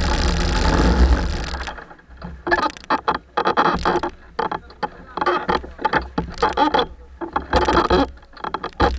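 A vehicle engine running at idle, then shutting off about two seconds in.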